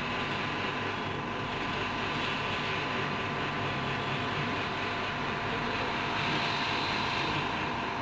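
Steady mechanical hum of running machinery, an even rushing drone with a faint steady whine in it.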